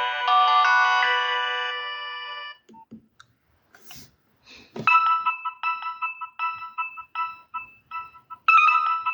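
Nokia 6030 mobile phone's loudspeaker playing polyphonic ringtones. One melody fades out about two and a half seconds in; after a short gap with a couple of clicks, another ringtone starts about five seconds in, a quick pattern of short repeated notes, about three a second.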